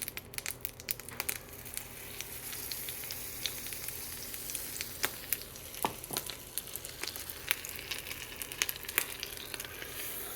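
Waffle batter sizzling in a hot waffle iron: a steady hiss with scattered crackles and pops.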